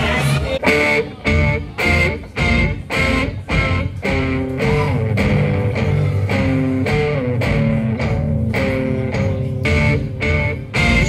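Outro theme music: electric guitar strummed in a steady rhythm over bass guitar.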